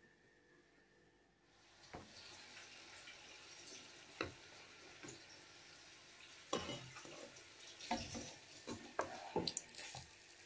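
Pirozhki frying in oil in a frying pan, a steady faint sizzle that begins about a second and a half in. A wooden spatula knocks and scrapes against the pan several times.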